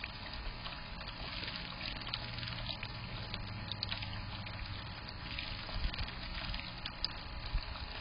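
Bird-bath fountain spout pouring a steady trickle of water into its basin, with small splashes. A few soft low thumps come about six seconds in.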